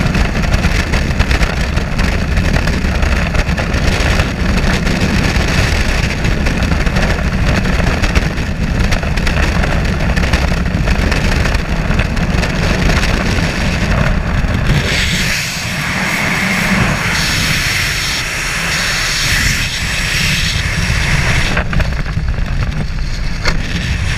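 Freefall wind blasting over the camera microphone, a loud steady rush. About fifteen seconds in it eases to a lighter wind rush as the parachute opens and the fall slows to canopy flight.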